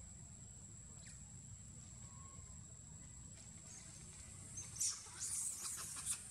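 Dry leaf litter crackling and rustling in a short burst near the end, over a steady high-pitched whine and a low hum.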